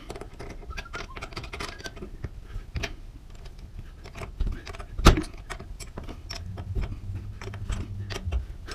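Metal hardware on a garage door torsion shaft (cable drum and end bearing plate) being worked by hand: light metallic clinks and clicks, with one sharp knock about five seconds in. A low hum joins for a couple of seconds near the end.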